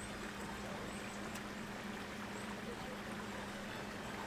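Steady outdoor background noise with a constant low hum, and a faint click of a spoon or fork on the dish about a second and a half in.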